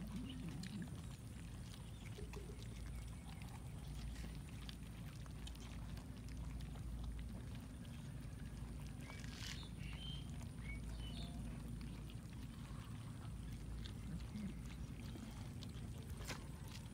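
A crowd of cats chewing and smacking as they eat cooked rice off a wooden board, a steady patter of small wet clicks over a low rumble. A few short high chirps come near the middle.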